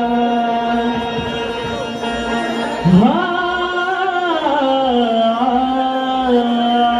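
Male voice singing long held notes of a devotional gan (Ganesh invocation) in Konkan folk style. About three seconds in the voice slides up to a higher note, holds it, then glides back down to the first note.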